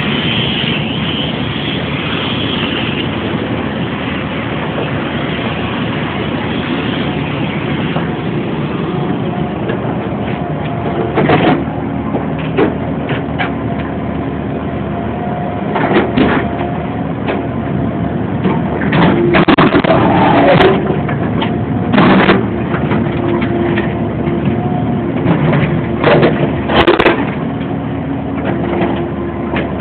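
E50 compact excavator running steadily while breaking out a concrete pad, with a whine coming in partway through. Several loud sharp cracks and bangs of concrete being hammered and broken come in the second half, the loudest near the end.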